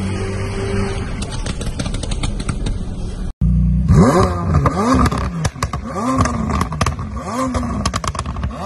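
A McLaren running through a tunnel, heard from a following car. After a sudden cut, a McLaren 720S's twin-turbo V8 is revved in short blips about once a second. Each blip rises and falls in pitch, with sharp crackles throughout.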